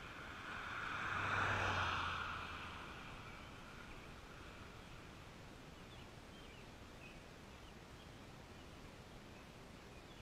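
A road vehicle drives past. Its tyre and engine noise swells to a peak about a second and a half in and dies away by about four seconds. After that, faint short bird chirps sound over a steady outdoor hiss.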